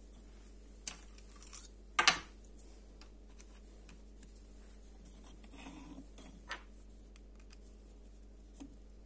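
A few small, sharp clicks and taps of brass fountain pen parts being picked up and handled on a hard worktop. The loudest comes about two seconds in, with light rubbing a few seconds later.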